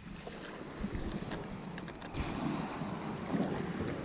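Wind rumbling on the microphone over small waves washing onto a sandy beach, with a couple of short clicks in the middle and the noise growing a little louder after about two seconds.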